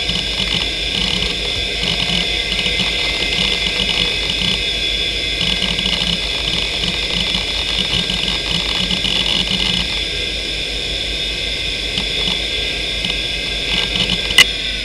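Western Digital Caviar 2340 340 MB hard drive spinning with a steady high whine, its heads seeking in irregular bursts of chatter as Windows 95 loads from it. The seeking thins out after about ten seconds, and a single sharp click comes near the end.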